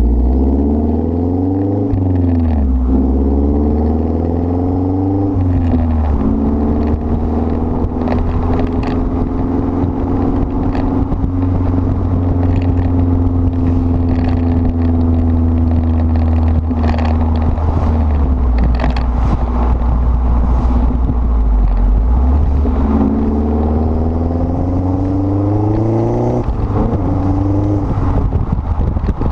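2011 Mazdaspeed 3's turbocharged 2.3-litre four-cylinder through a catless Magnaflow exhaust and downpipe. It pulls up through two gear changes, the revs climbing and dropping. It then drones at a steady, slowly falling pitch for much of the time, and revs up once more before dropping off at a shift near the end.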